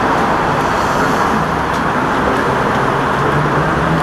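Steady street traffic noise, with a low engine hum that comes in about a second and a half in and grows stronger toward the end.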